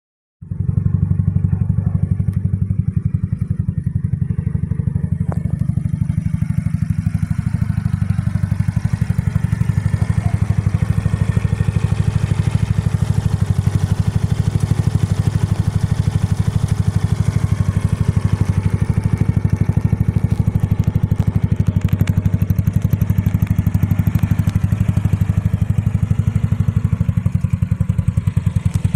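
Italika WS150 scooter's GY6 150 cc single-cylinder four-stroke engine idling steadily through a Yoshimura TRS tri-oval carbon-fibre aftermarket exhaust, a low, even putter that starts about half a second in.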